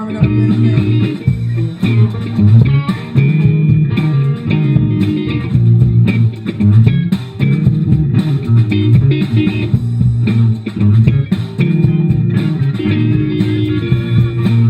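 Band music: guitar and bass guitar playing a bluesy soul riff.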